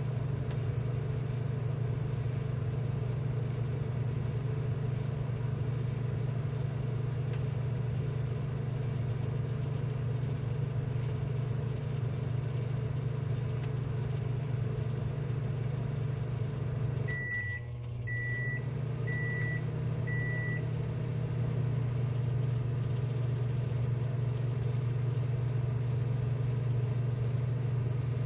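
Steady low hum of a ZM R730 BGA rework station's fans and hot-air blower, with a faint steady tone above it. About two-thirds of the way through, the hum dips briefly and four short high beeps sound about a second apart. The hum then carries on at a slightly higher pitch.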